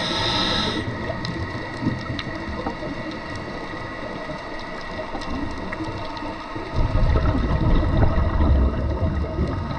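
Underwater sound of a scuba diver breathing through a regulator: an inhale hiss ends about a second in, then, after a pause filled with faint scattered clicks, a low rumble of exhaled bubbles starts about seven seconds in.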